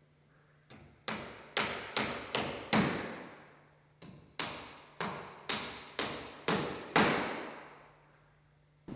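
A hammer driving nails into cedar ridge capping. There are about a dozen sharp blows, two runs at roughly two strikes a second with a brief pause between them, and each blow rings out with a long echo.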